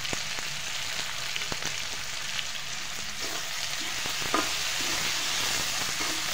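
Sliced onions sizzling in hot mustard oil in a kadai, a steady frying hiss, stirred with a slotted metal spoon that gives a few light scrapes and clicks.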